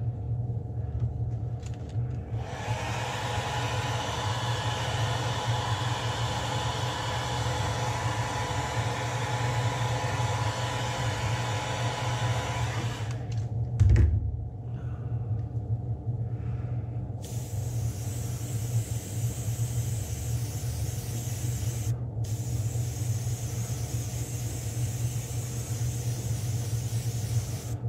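Electric hot-air blower running steadily, heat-setting freshly airbrushed water-based paint on a lure. It is a constant low hum under an even hiss, with a single thump about halfway through, after which the hiss sounds brighter.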